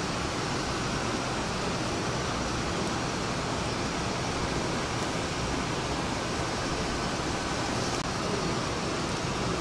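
Steady, even rushing background noise, with no distinct knocks or clicks standing out.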